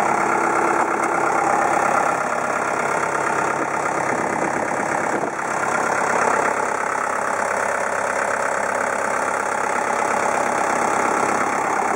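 The 72-horsepower Cat diesel engine of a Cat 906H compact wheel loader idling steadily.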